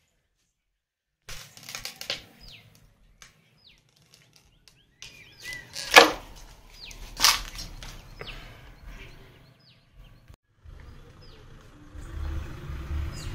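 Birds calling with short, high falling chirps, repeated every second or so from about a second in. Two sharp knocks stand out about six and seven seconds in, and a low rumble rises near the end.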